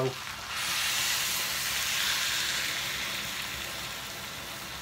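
Hot water from a freshly boiled kettle poured into a hot pot of browned mince and vegetables, sizzling and hissing as it hits the pan. The hiss starts about half a second in and slowly dies down.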